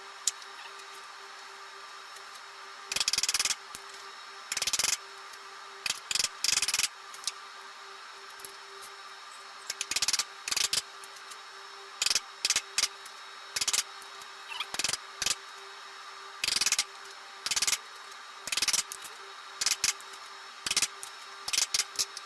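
A steady machine hum with a constant tone, overlaid by many short, loud knocks and clatters at irregular intervals, one or two every second or so.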